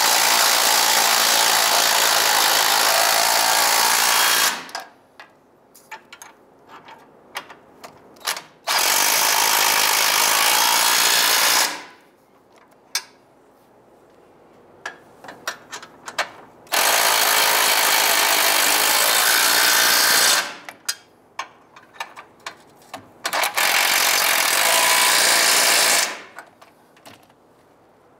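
Cordless impact wrench with an 18 mm socket running nuts down tight onto crossmember bolts, in four runs of a few seconds each. Between the runs there are sharp clicks and light metal knocks as the socket is moved from nut to nut.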